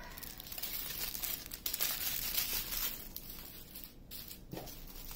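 Small clear plastic bags of diamond painting drills crinkling and rustling as a handful of them is handled and shuffled.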